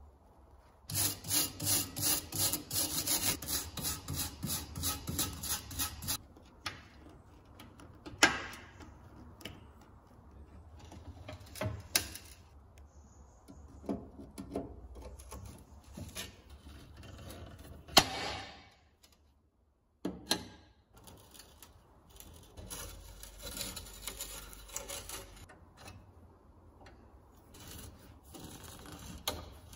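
Metal hand-tool work on a rusty steel stove top: end-cutting pincers scraping, gripping and twisting out rusted screws, with scattered scrapes and a few sharp metallic clicks. Near the start comes a rhythmic rasping scrape, about four strokes a second, for some five seconds.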